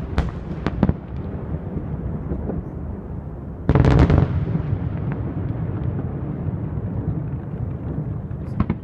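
Fireworks display: a few sharp shell bursts in the first second, then a louder, longer blast about four seconds in. A continuous low rumble and crackle of smaller bursts runs between them, with more bangs near the end.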